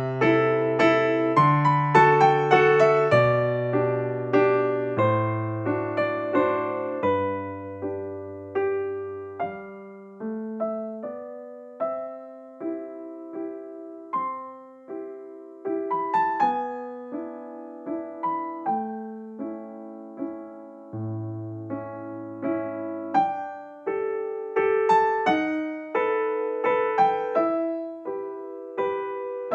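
Background music played on an electric piano: gentle chords and a melody over held bass notes, each note fading after it is struck.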